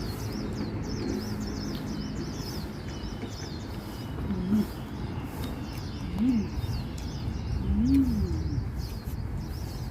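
Small birds chirping rapidly and repeatedly over a steady low outdoor background hum. There are three short, low rise-and-fall sounds about four, six and eight seconds in.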